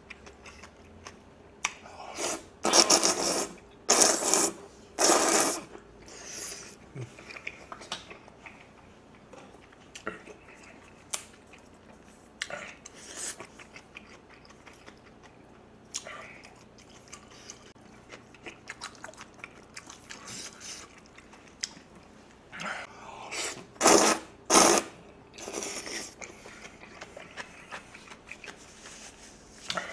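Close-miked eating of jjajangmyeon: loud slurps of black bean sauce noodles in two runs, a few seconds in and again near the end, with quieter chewing and mouth sounds between.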